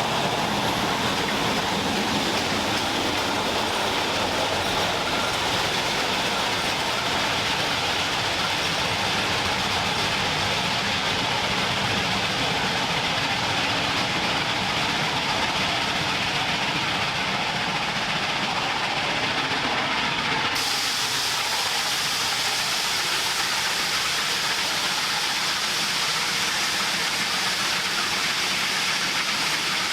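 Shay geared steam locomotive working with its train, a steady rushing noise with steam hiss. The sound changes abruptly about two-thirds of the way in.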